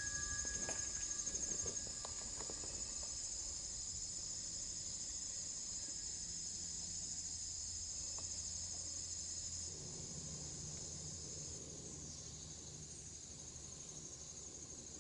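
Insects trilling steadily in a high, even chorus of two layered tones, the lower of which drops out about twelve seconds in. A few faint clicks and rustles in the first few seconds.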